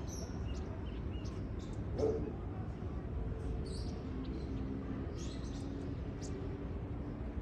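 Small birds chirping, with short high chirps scattered throughout, over a low, steady rumbling background noise.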